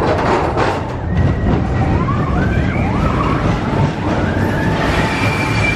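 Expedition Everest roller coaster train running along its track: a heavy rumble with high wheel squeals that rise and fall, and a steady high whine near the end.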